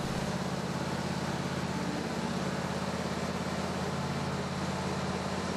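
Riding lawn mower's engine running steadily as the mower drives off the lift, an even hum with a slight fast flutter.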